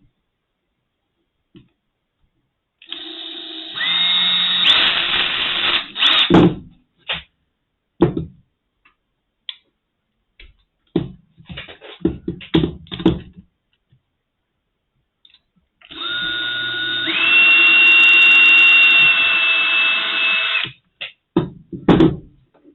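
Small electric drill run in two bursts of a few seconds each, its whine stepping up in pitch as it spins up, drilling out plastic screw-cover plugs. Light clicks and knocks of handling come between the bursts and after the second.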